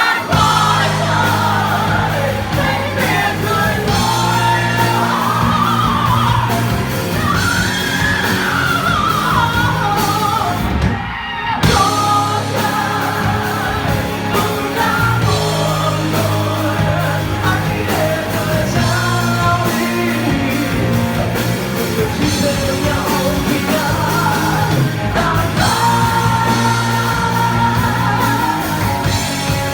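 Rock song with loud sung and yelled vocals over a steady bass line and drums. The band drops out briefly about eleven seconds in.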